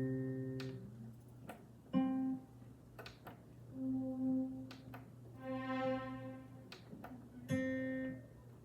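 Roland FP-30 digital piano playing a few slow, separate notes on one of its built-in non-piano voices, a plucked/string-like sampled tone. A couple of the notes swell in gently, the others start sharply.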